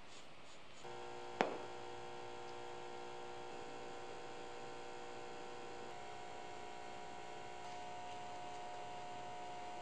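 Steady electrical hum with several held tones from the power unit of a wired pyrography wood-burning pen while it burns lines into maple. The hum starts about a second in, with one sharp click shortly after.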